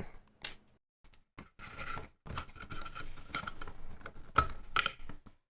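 Small clicks, taps and scraping of a screwdriver working screws out of the plastic housing of a DX Genesis Driver toy belt, with two sharper clicks near the end.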